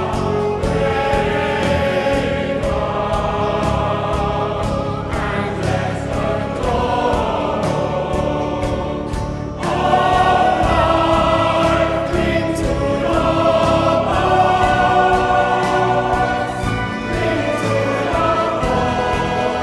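Background choral music: a choir singing sustained chords, with a faint steady beat, swelling louder about halfway through.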